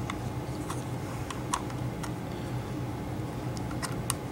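Scattered light plastic clicks and taps as an HK Army Epic Speedfeed is handled and pressed onto an Empire Prophecy paintball loader: a few in the first half and a small cluster near the end, over a steady low hum.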